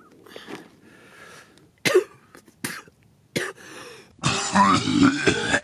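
A man coughing hard in a harsh fit about four seconds in, lasting over a second, after a few short sharp clicks.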